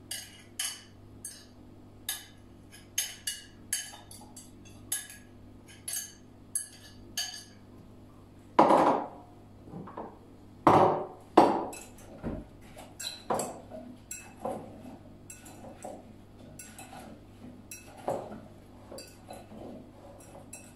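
A metal spoon clinking and scraping against glass bowls: a quick run of light taps as seasoning is knocked off the spoon from a small glass bowl into a larger bowl of raw pumpkin cubes. A few louder knocks come about eight to twelve seconds in, then scattered clinks as the spoon works through the pumpkin.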